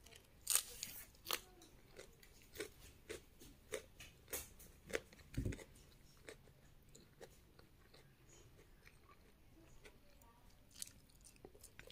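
Close-up chewing of a mouthful of food, with sharp crisp crunches coming quickly in the first half, loudest about half a second in, then thinning out to occasional quieter chews.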